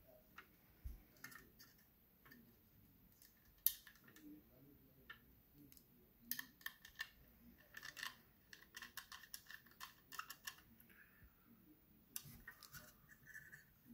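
Faint scattered small clicks and taps of hands handling a laptop's parts and tools. A sharper click comes about four seconds in, and a quick run of clicks follows from about six to ten seconds.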